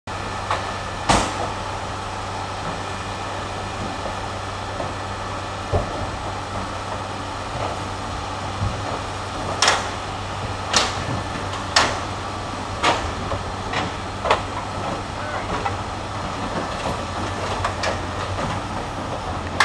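A crane's engine running steadily at a low hum, with sharp single knocks now and then and a quick run of them, about one a second, in the middle stretch.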